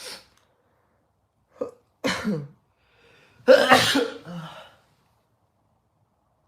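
A man sneezing: a brief noise near the start, a short one at about one and a half seconds, then a sneeze about two seconds in and a second, loudest sneeze about three and a half seconds in.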